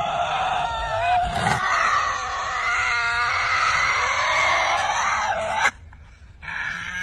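Harsh, screeching animal calls that cut off suddenly about six seconds in; a different call starts shortly after.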